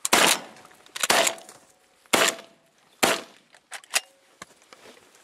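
Shotgun blasts: four loud shots about a second apart, then two fainter sharp pops near the four-second mark.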